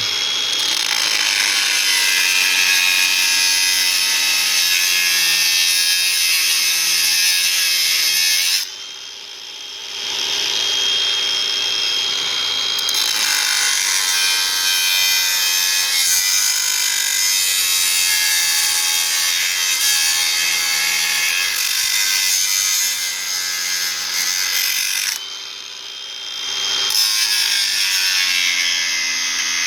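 Angle grinder cutting into an old brass water meter body, a loud, steady high grinding noise that dips briefly twice, about nine seconds in and again around twenty-five seconds.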